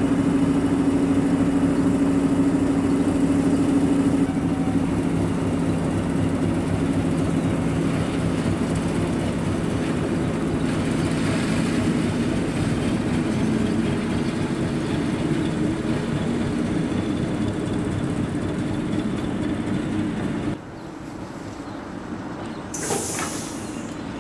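Diesel engine of an SM42 shunting locomotive running steadily as it hauls covered freight wagons away, with the rumble of the wagons on the rails. The engine hum fades slowly, and the level drops suddenly about 20 seconds in. A brief hiss follows near the end.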